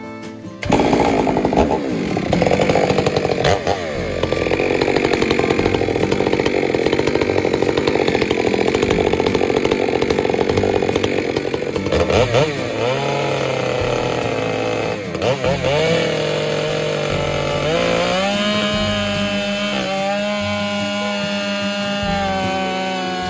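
Chainsaw running: a long steady stretch, then the engine revs up and down a few times and settles to a steady speed near the end.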